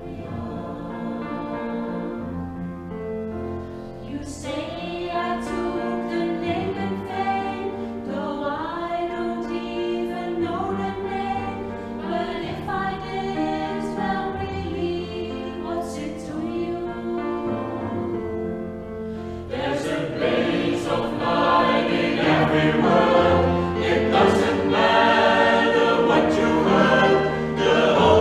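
A mixed-voice vocal group of about eight singers sings a song in close harmony, swelling noticeably louder about two-thirds of the way through.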